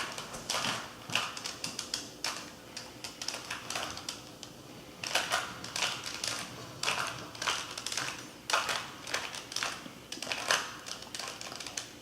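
Plastic 2x2 Rubik's Cube being turned by hand, its layers clicking and clacking in quick irregular runs with short pauses.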